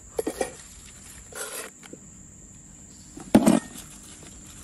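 Knife and hands working leafy greens on a wooden cutting board: a few light knocks and a rustle of leaves, then one louder knock about three seconds in.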